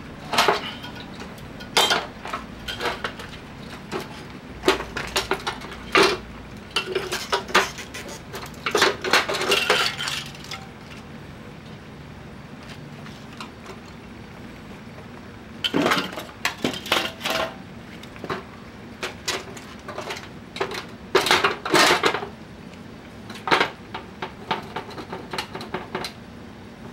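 Metal clanking and clinking of hand tools against the sheet-metal and copper parts of a window air conditioner being taken apart: bursts of sharp knocks, a quieter pause in the middle, then more knocks.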